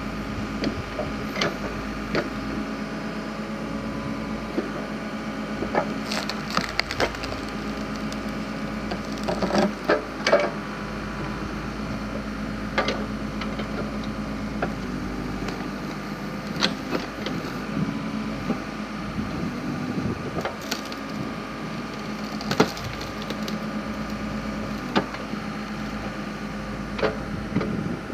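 Backhoe-mounted log splitter splitting firewood: wood cracks and splinters sharply a dozen or so times as the logs give way, over the steady running of the backhoe's engine.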